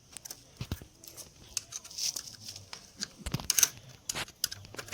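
Irregular clicks and scrapes of small metal parts as a bicycle freewheel is handled and taken apart by hand, with a cluster of louder clicks about three and a half seconds in.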